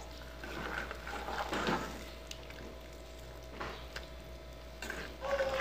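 Wooden spoon stirring a thick shrimp filling in a metal pot: soft, scattered scrapes and knocks.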